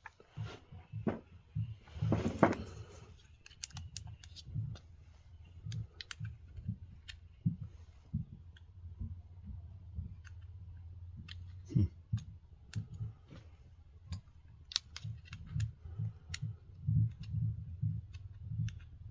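Irregular small clicks and taps of chainsaw parts and tools being handled, with a scrape about two seconds in, over a steady low hum.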